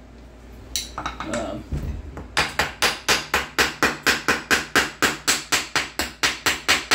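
Rapid, even tapping on the cast-aluminium final-drive cover of a GY6 150cc scooter engine, about five light strikes a second, starting about two seconds in after a few scattered clicks. The tapping is meant to break the gasket seal and loosen the cover.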